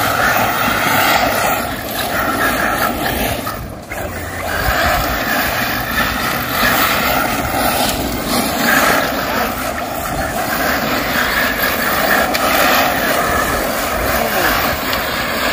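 Arrma Mojave 6S RC trucks' brushless electric motors running at speed, with the trucks' tyres churning loose dirt. Briefly quieter about four seconds in.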